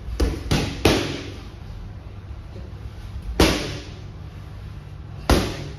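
Boxing gloves punching leather focus mitts: a quick three-punch combination, then two single punches a couple of seconds apart, each a sharp smack that echoes briefly.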